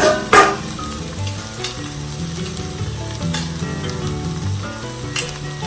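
Tomato sauce sizzling as it fries in a pan while being stirred, with sharp knocks of the spoon against the pan near the start and again near the end.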